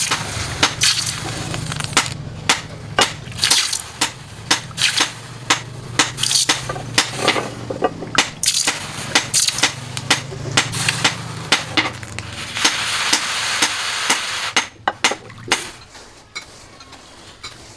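Water splashed and sloshing over a hot forged steel cleaver blade in a stone quench trough, with repeated sharp metal knocks like hammer blows, one or two a second, over a low steady hum. The knocks stop near the end.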